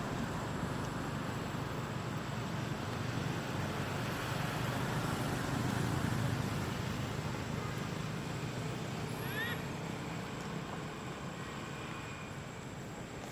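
Steady low rumble of road traffic, swelling slightly about five seconds in, with a brief high chirp a little past the middle.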